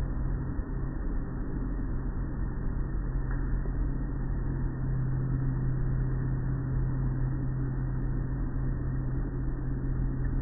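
Automatic car wash machinery running: a steady low hum under the continuous wash of water and cloth curtain strips sweeping over a vehicle.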